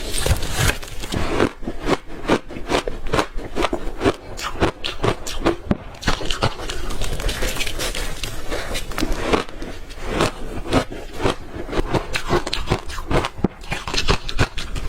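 A person biting and chewing crunchy ice chunks coated in matcha powder, close to the microphone: a dense run of sharp crunches, many a second, with a few brief pauses.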